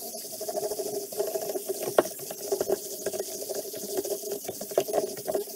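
Toothbrush scrubbing a small-engine carburetor in a bowl of hot soapy water: bristles scratching, water sloshing and the metal carburetor clicking and knocking in the bowl, over a steady low hum.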